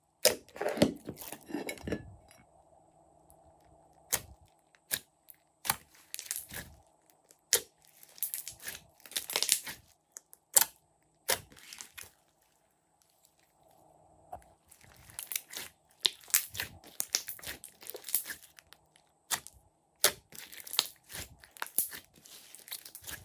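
Hands squishing, pressing and stretching glossy slime, with many sharp crackling pops and sticky tearing sounds as it is pulled apart, and a short lull in the middle.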